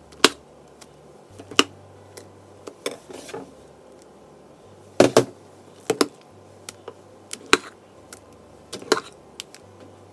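A spoon scooping thick hot-process soap batter out of crock pots and plopping it into a loaf mold. It gives a dozen or so sharp knocks and taps at irregular intervals as it strikes the crock pot rims and the mold.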